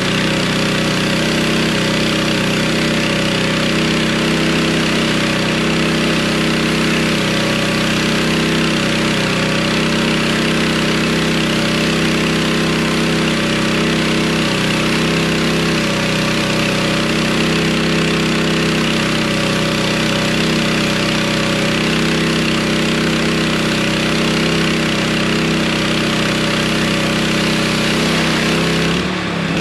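Pressure washer's small engine running steadily under load, with the hiss of high-pressure water spraying from a 15-inch surface cleaner against a concrete foundation wall. The sound dips and changes just before the end.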